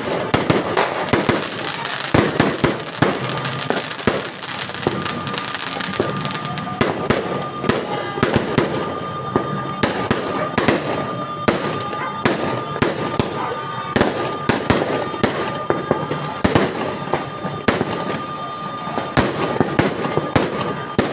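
Many New Year fireworks and firecrackers going off at once: a dense, irregular run of bangs and crackles with no pause. A steady high tone joins about a third of the way in.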